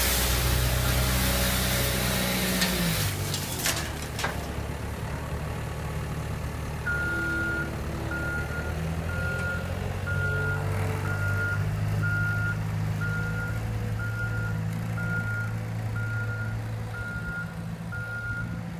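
Loader engine running with a rotary sweeper brush attachment sweeping dusty ground, the brush making a broad hiss for the first few seconds. From about seven seconds in, the machine's reversing alarm beeps steadily, about one and a half beeps a second, over the engine.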